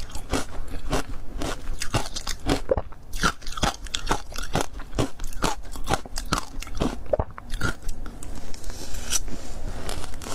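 Ice being bitten and crunched close to the microphone, a rapid run of sharp cracks that thins out to softer chewing near the end.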